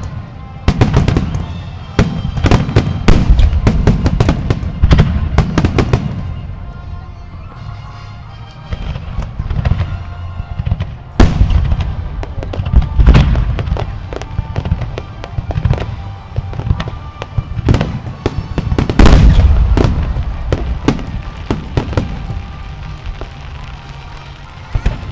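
Aerial fireworks bursting over and over: sharp bangs and crackles over a deep rolling rumble. Dense volleys come in the first few seconds, the bursts thin out for a while, then a loud cluster comes about three-quarters of the way through.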